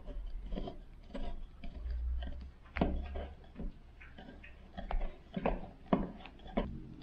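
Wooden furniture leg being screwed by hand onto the threaded bolt of a pouf's metal mounting plate, giving a series of irregular light clicks and knocks as it turns.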